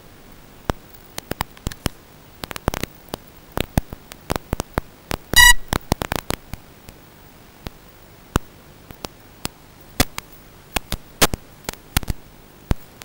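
Crackling static: irregular sharp clicks and pops over a steady hiss and faint hum, with one short electronic beep about halfway through.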